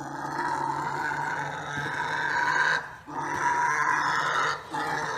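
Pig giving long, drawn-out grunting growls while its hay nest is disturbed: one stretch of about three seconds, a short break, then another of a second and a half and a brief one near the end.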